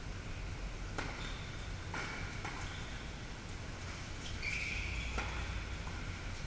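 Tennis balls struck by rackets in a doubles rally on an indoor hard court: several sharp pops about a second apart, echoing in the large hall. Between the hits, high squeaks of shoes on the court, the longest a little past the middle.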